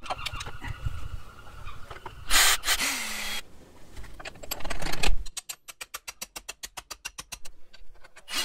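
Hand tools at work on motorcycle crash bars: a few short scraping and noisy bursts, then a ratchet wrench clicking rapidly, about ten clicks a second, for nearly three seconds as bolts are run in.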